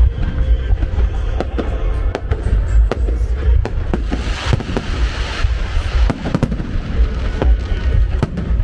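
Fireworks display: many sharp bangs and deep booms in quick succession, with a denser stretch of crackling about four to five seconds in, over music.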